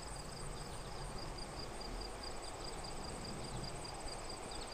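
Faint, steady, evenly pulsed high-pitched insect chirping, like a cricket, over a soft outdoor background hush.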